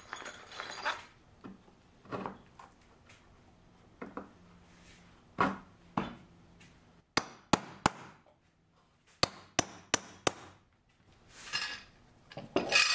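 A series of sharp knocks and metallic clicks as glued wooden rails and their alignment bolts are tapped into line and a metal bar clamp is set on them. A longer scraping sound comes near the end.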